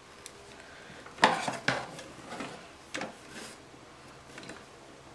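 Small clicks and knocks as a desk stapler and pipe cleaners are handled against a cardboard-backed metal ice-skate ornament, the sharpest about a second in and another near three seconds.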